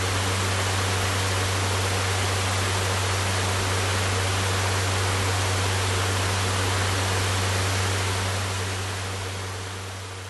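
Electric fan running: a steady rush of moving air over a low motor hum, fading out over the last two seconds or so.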